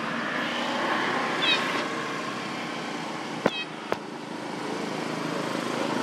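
A baby macaque gives a short, high, falling squeak about a second and a half in, while tugging at the food its mother holds. Two sharp clicks follow about half a second apart near the middle.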